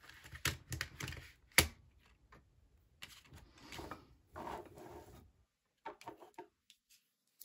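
Tarot cards being handled and laid on a wooden tabletop: a few sharp taps in the first two seconds, then soft swishes of cards sliding over the table, and a few light clicks near the end.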